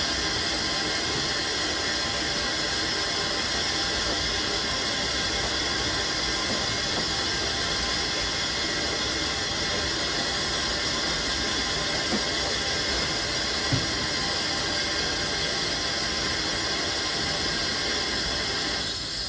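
A standing Bulleid West Country class Pacific steam locomotive hissing steadily as steam escapes. Two faint knocks come about two-thirds of the way through.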